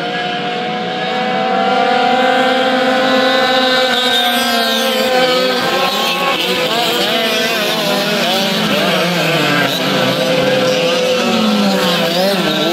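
A pack of dirt karts with Yamaha KT100 two-stroke engines racing, several engines at high revs at once. Their pitches rise and fall as the drivers come on and off the throttle around the track.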